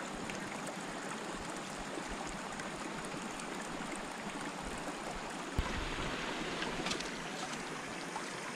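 Shallow stream flowing fast over rocks: a steady rush of water, with a single short knock about two-thirds of the way through, where the sound changes.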